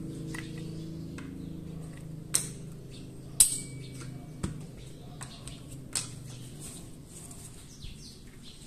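Small metal clicks and clinks of pistol parts and a screwdriver being handled on a rubber bench mat, four sharp ones in all. The loudest, about three and a half seconds in, is a clink with a brief ring: a small grip screw dropping into a steel magnetic parts tray. A low steady hum runs underneath.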